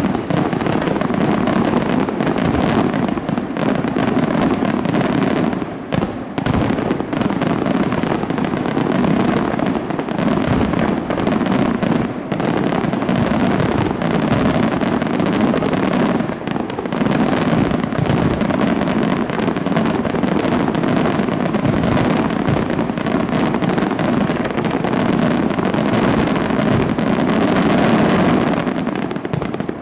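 Aerial fireworks exploding in a dense, rapid, almost continuous barrage of bangs and crackles, with only a few brief lulls.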